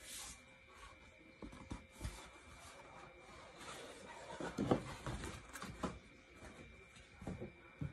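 Handling a rigid cardboard presentation box: scattered rubs, scrapes and light knocks as it is gripped, lifted and moved, busiest a little past the middle.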